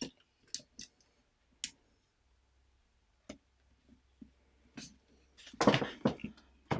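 LEGO plastic bricks clicking and tapping as they are handled and pressed together: scattered single clicks, then a louder quick run of clicks near the end.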